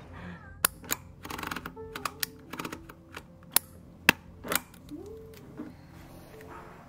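Handheld DYMO embossing label maker clicking as letters are dialled and pressed into the plastic tape: a string of sharp, irregular clicks, with a short rattling burst about a second and a half in and the loudest clicks around four seconds in.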